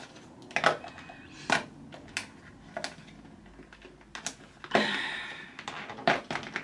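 Irregular sharp clicks and taps of packaging being pried at to work a tiny skincare sample jar loose, with a longer scrape about five seconds in.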